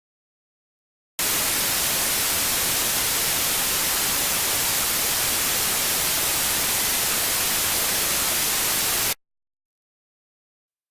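Steady static hiss like an untuned TV or radio, starting abruptly about a second in and cutting off sharply about eight seconds later.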